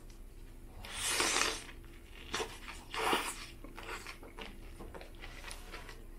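Close-miked bites into a saucy toasted Subway Italian BMT sub and chewing, loudest in two noisy bursts about a second and about three seconds in.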